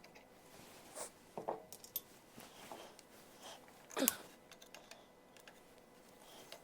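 Scattered light clicks, taps and scrapes of small metal parts and tools being handled on a workbench, with one louder knock about four seconds in.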